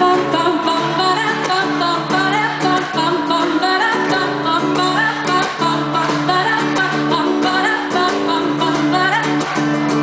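Live acoustic guitar strummed steadily, sustaining low bass notes, with a voice singing a wavering melody over it.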